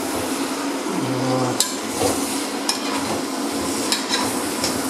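Beef and carrots frying in a metal pot as the base for Uzbek plov, with a steady sizzle. A metal ladle stirs through them and clicks against the pot a few times.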